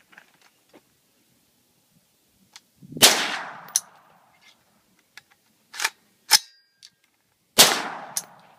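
Two AR-15 rifle shots about four and a half seconds apart, each with a ringing tail. Between them come sharp metallic clacks typical of the action being worked by hand, as the newly built rifle, whose gas block had just been fixed, keeps failing.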